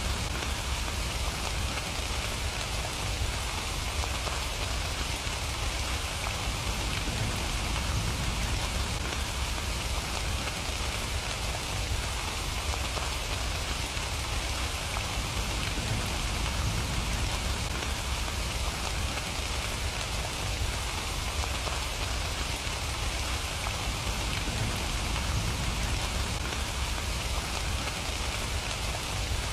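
Steady rain falling and pattering on surfaces, an even hiss with no breaks.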